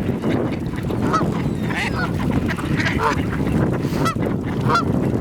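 A flock of geese honking, many short calls overlapping over a steady low chatter of the gathered waterfowl.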